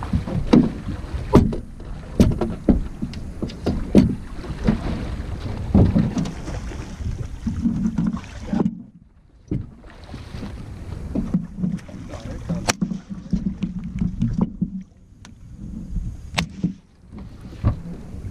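A hooked alligator thrashing and splashing at the surface beside a small boat, with repeated sharp knocks and splashes. Two short lulls come about halfway through and near the end.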